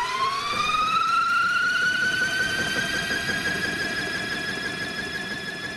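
A mechanical whine spinning up: it starts from a click, climbs steeply in pitch, then holds a steady high note and slowly fades.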